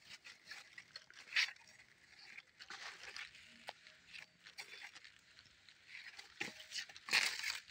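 Faint rustling and crunching of footsteps and vines moving on dry grass and leaf litter, with scattered small clicks and a louder rustle about seven seconds in.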